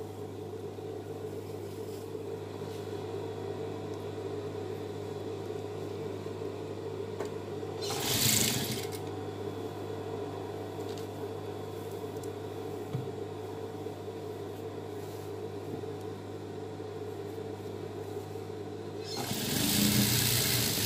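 Industrial sewing machine's motor humming steadily, with two louder runs of stitching, a short one about eight seconds in and a longer one near the end, as the dress hem is sewn.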